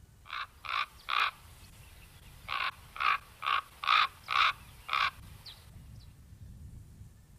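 A crow-like bird cawing: three short caws in about the first second, a pause, then six more at about two a second.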